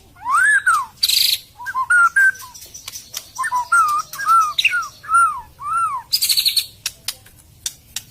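White-rumped shama singing: clear, arched whistled notes, about five in a quick run in the middle, broken by harsh rasping notes about a second in and again near six seconds.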